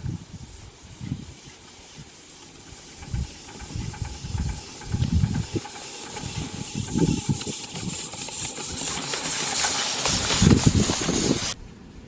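Live-steam model locomotive venting steam: a hiss that grows steadily louder and then cuts off suddenly near the end, with irregular low rumbles underneath.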